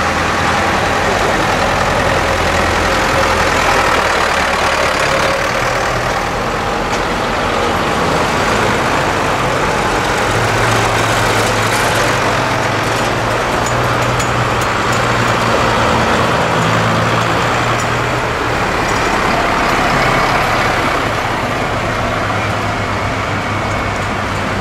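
Farm tractors' diesel engines running as the tractors drive past one after another, a steady engine hum whose pitch shifts every few seconds as each one goes by.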